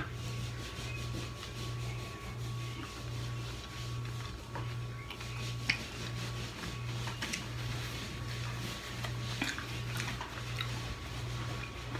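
Soft handling sounds from a plate of steamed clams and blue crab: scattered clicks of shells, and a paper towel rubbed over the hands near the end. Under it a low hum pulses a little faster than once a second.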